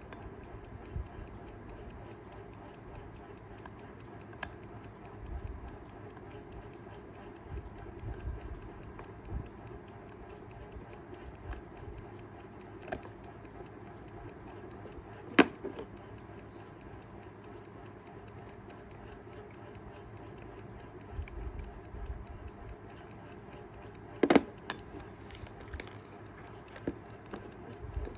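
Kaiser 4 Rubis mechanical travel alarm clock ticking evenly, its movement running again. Two sharp clicks, about halfway and late on, stand out over the ticking.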